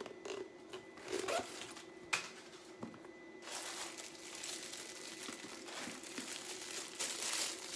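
Crinkling and rustling as a newly unpacked handbag is handled, with a few light clicks and brief rustles at first, then denser, steadier rustling from about halfway.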